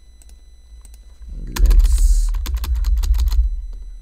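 Typing on a computer keyboard: a few scattered key clicks, then a quick run of keystrokes from about a second and a half in, with a low rumble underneath.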